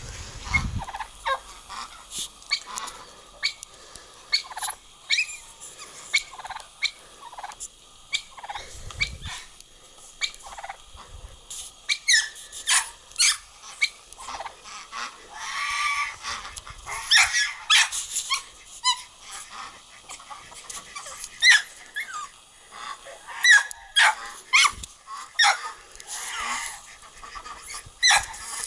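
Domestic waterfowl calling over and over in short calls, some sliding in pitch. The calls come thicker and louder in the second half.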